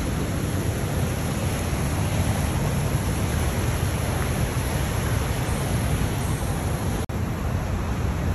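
Steady rush of the fast-running Niagara River rapids, an even roar of water, cutting out for an instant about seven seconds in.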